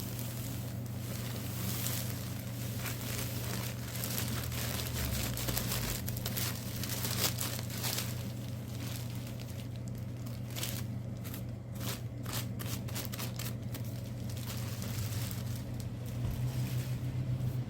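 Packaging crinkling and rustling in irregular bursts as fine fermented black deodeok powder is shaken out of it, over a steady low hum.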